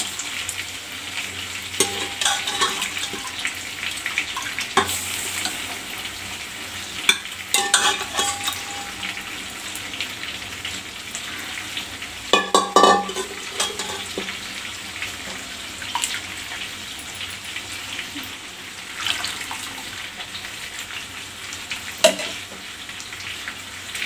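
Chicken curry cooking in an aluminium pot with a steady sizzle, and a steel ladle scraping and knocking against the pot now and then as the gravy is stirred; the loudest stir comes about 13 seconds in.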